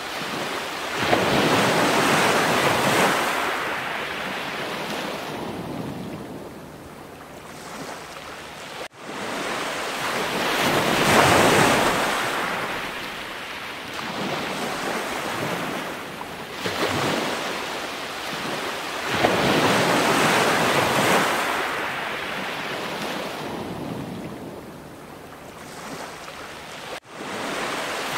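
Sea waves washing onto a shore, the noise swelling and fading every few seconds, with two brief sudden drop-outs about 18 seconds apart.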